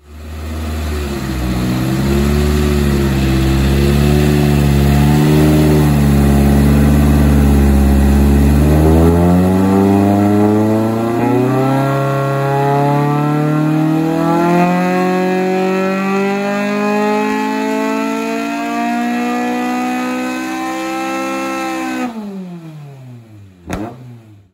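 Honda K24 2.4-litre four-cylinder, built naturally aspirated and high-compression and swapped into a Toyota MR2 Spyder, making a full-throttle chassis-dyno pull. The engine note holds fairly steady at first, then climbs smoothly for about thirteen seconds to high revs, before the throttle closes and the revs fall away quickly, with one sharp crack near the end.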